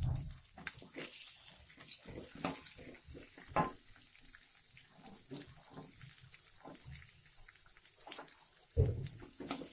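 Cooking in a frying pan: a spatula knocking and scraping irregularly as sliced onion goes into the hot pan and is stirred, with a heavier thump at the start and another near the end.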